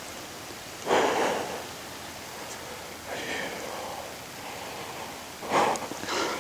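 Three heavy, noisy breaths about two seconds apart, the first and last loudest, over a faint steady hiss.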